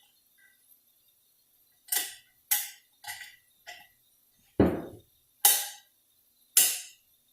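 A series of seven sharp metallic clicks and knocks, the loudest three in the second half, as steel snap rings are worked and snapped into their groove in a 46RE transmission clutch housing.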